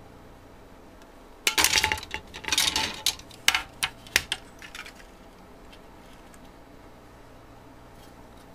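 Hard plastic kit parts clicking and clattering as they are handled. A rattly burst comes about one and a half seconds in, then a few separate sharp clicks, and it stops before five seconds.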